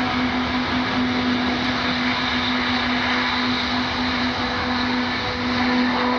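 Airbus A380's four turbofan engines at takeoff thrust as it lifts off and climbs away: a steady jet noise with a constant hum running under it.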